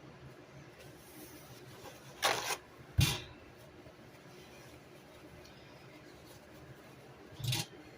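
Handling noises from a metal baking tray and wire rack being set out on a counter: a short rasp about two seconds in, a sharp knock just after it, and another short clatter near the end.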